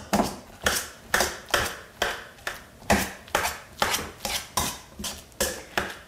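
Stainless steel potato masher pressing roasted kabocha squash against the bottom of a stainless steel mixing bowl: a steady run of metal-on-metal knocks, about two a second.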